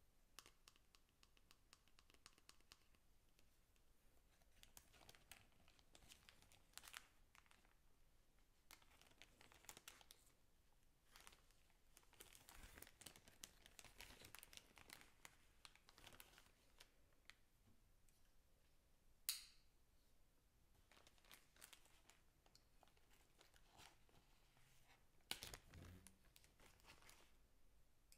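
Faint crinkling of a clear plastic packaging bag being handled and pulled open, with scattered small clicks of plastic parts and two sharper knocks in the second half.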